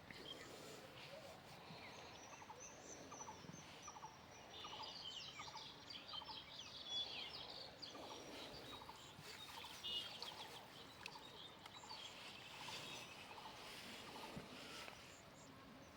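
Faint bird calls: many short, high chirps coming in quick runs, thickest a few seconds in, over a quiet outdoor background.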